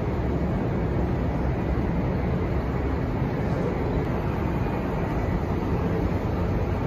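Toyota Century V12 engine with an aftermarket exhaust running steadily at low revs, a constant low exhaust drone with no revving.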